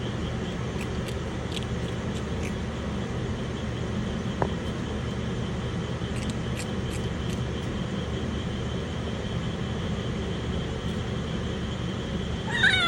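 Steady low rumble with scattered faint clicks, ending with a short wavering meow from a young stray kitten.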